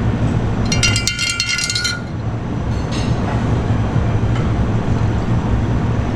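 Glass clinking and jingling for about a second, starting about a second in, as a glass pitcher is lifted off a brass serving tray. Under it, a steady low rumble of room noise.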